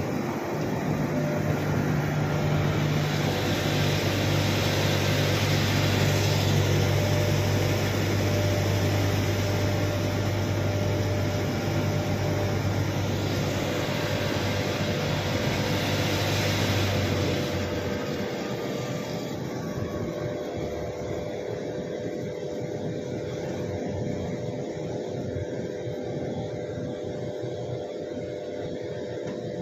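A steady machine-like hum over a wash of noise. Its deepest hum tones cut out about two-thirds of the way through, and a quieter steady hum carries on.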